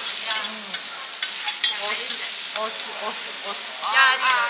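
Food frying on a hot iron teppan griddle, with a steady sizzle and the stirring and scraping of cooking on the plate. About four seconds in there is a brief, louder high-pitched sound.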